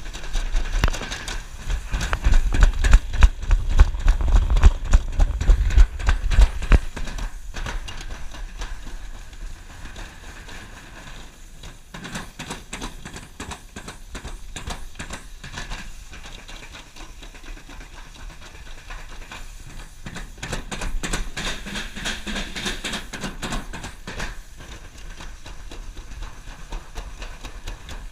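Toboggan sled running down a stainless-steel trough, a continuous rumbling and hissing of the sled on the metal. It is loudest and most uneven over the first several seconds, settles, then grows louder again about two-thirds of the way through.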